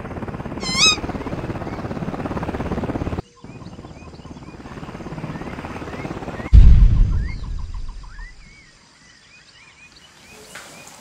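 Helicopter rotor noise with a fast, even pulsing for about three seconds, cut off abruptly. Birds chirp after it, a heavy low boom comes about six and a half seconds in and dies away, and a few more bird chirps follow.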